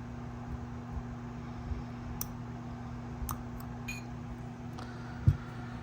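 Steady low electrical hum at the soldering bench, with a few faint light clicks of small parts and tools being handled and one soft thump near the end.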